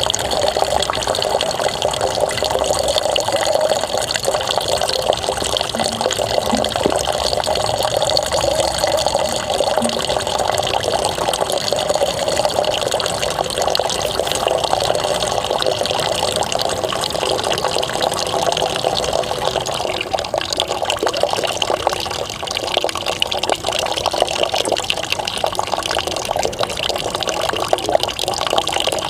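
Water streaming out of a dand dhauti pipe, a soft tube swallowed down into the stomach, and splashing down steadily as the drunk water drains out. The flow grows more uneven in the last third.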